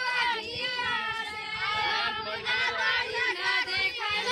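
Several high voices, girls and women, singing together over a chattering crowd.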